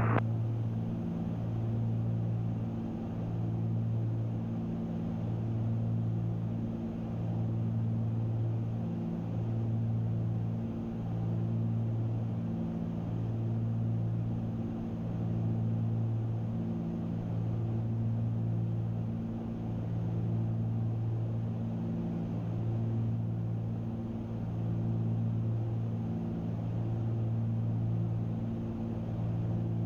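The two six-cylinder piston engines and propellers of a Cessna 310Q running steadily in cruise, heard inside the cabin as a low drone that swells and fades slowly about every two seconds.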